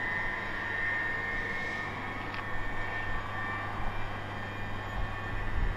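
Greater Anglia Class 755 bi-mode unit approaching slowly, giving a steady high whine made of several tones over a low hum, with one brief click about halfway through.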